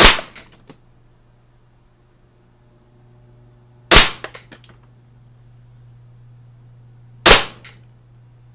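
Three shots from a VFC Glock 17 Gen 4 gas-blowback airsoft pistol, roughly three and a half seconds apart. Each is a sharp crack followed by a few lighter ticks.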